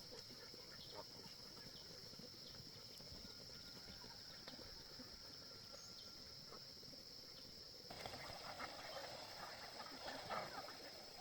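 Quiet farmyard ambience with a steady high-pitched drone and scattered small clicks. About eight seconds in, louder calls and scuffling from farm poultry join.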